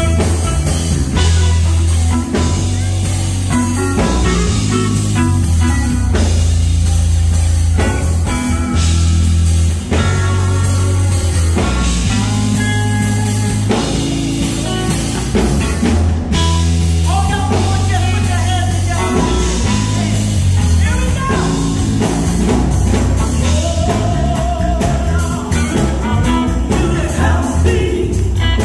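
Live band music at full volume: electric guitar over a prominent bass line and drums.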